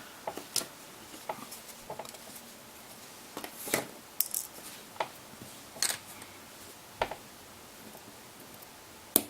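Scattered small plastic clicks and taps, about ten spread irregularly, as a phone's rear housing is pried away from its front housing with a flathead.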